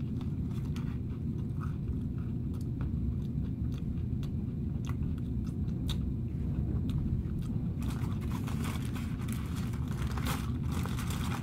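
Close-up chewing of a bite of crispy fried fish sandwich, with scattered small crunches over a steady low rumble. About eight seconds in, a brighter rustling noise joins in.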